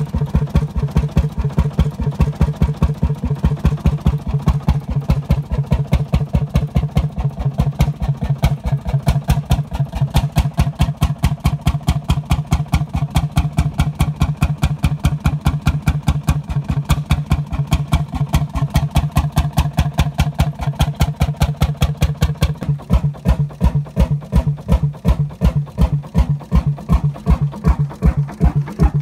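A 25 hp Fairbanks diesel stationary engine, horizontal single-cylinder with twin flywheels, running steadily on its own with a rapid, even exhaust beat. It is running for the first time in over forty years.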